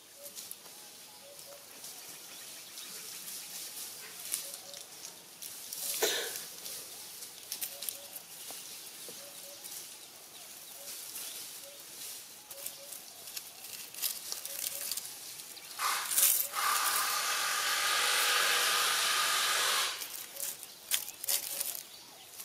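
Rustling and crackling in dry leaf litter, with many small scattered clicks. Past the middle, a loud steady hiss lasts about three seconds and stops suddenly.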